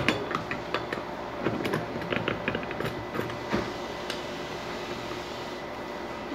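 Scattered clicks and knocks from handling a corded electric drill mounted in a drill stand, as its chuck and stand are adjusted, over a steady background hum; the drill motor is not running.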